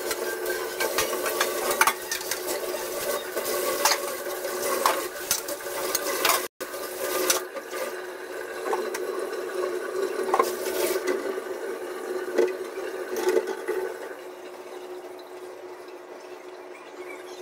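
Kitchen tap running into the sink while stainless-steel utensils are washed, with frequent clinks and scrapes of metal. The running water stops about fourteen seconds in, leaving quieter handling sounds.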